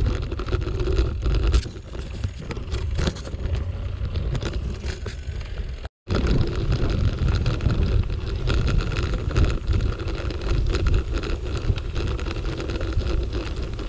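Wind buffeting the microphone over the rumble and rattle of a bicycle riding on a bumpy dirt forest path. The sound cuts out for a moment about six seconds in.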